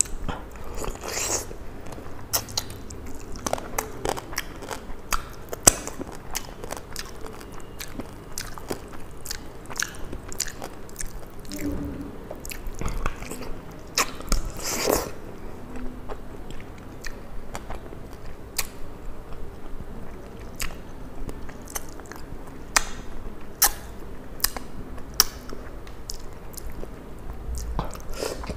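Close-miked eating of a curried fish head held in the hand: irregular biting, chewing and crunching, with many sharp wet clicks and smacks.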